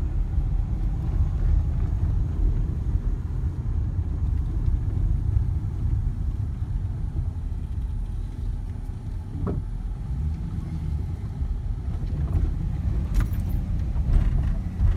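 Steady low engine and road rumble heard inside a slowly driving vehicle's cab, with a few light clicks, more of them near the end.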